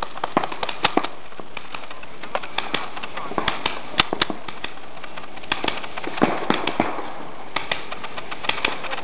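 Paintball markers firing in irregular bursts of sharp pops.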